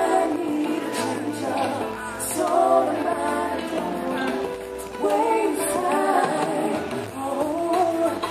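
Live music: a woman singing a wavering melody over a band with steady bass notes.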